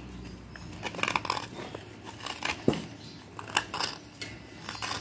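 A thin metal knife blade scraping the surface of a water-soaked lump of soft black clay, in short, irregular strokes that shave off the outer layer.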